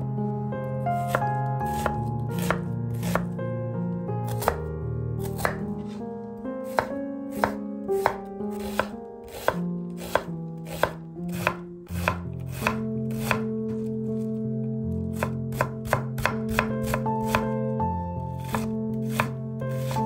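Knife chopping vegetables on a cutting board: sharp, irregular strikes about one or two a second, coming quicker for a few seconds past the middle, over soft background music with held chords.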